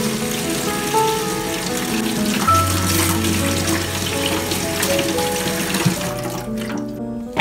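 Kitchen tap running onto broccoli in a wire mesh strainer over a stainless steel sink, shut off about six and a half seconds in. Background music plays throughout.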